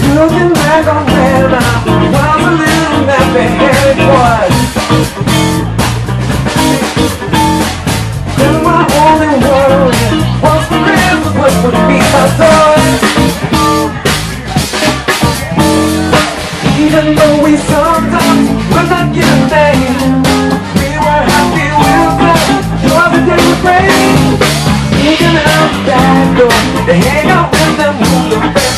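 Live funk band playing: electric guitar and drum kit keeping a steady groove, with a male voice singing over it.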